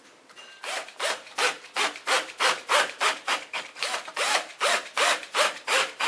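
Screw being driven slowly with a cordless drill/driver through the metal latch faceplate into the wooden door edge. It gives a rhythmic rubbing squeak about three times a second, starting about half a second in.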